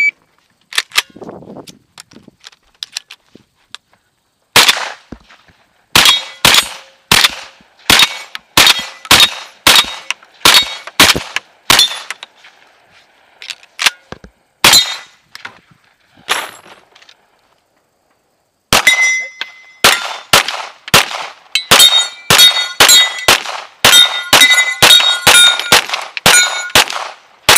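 Rapid gunfire: a string of long-gun shots at about two a second, then from about two-thirds of the way through a fast string of Springfield XDm 9mm pistol shots, each followed by the ring of a hit steel target.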